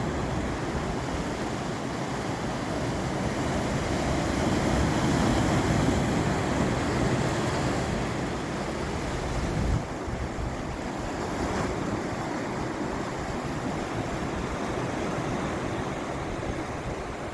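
Sea waves washing against the shore, a continuous surf wash with wind buffeting the microphone. The wash swells through the middle and drops off suddenly just past halfway.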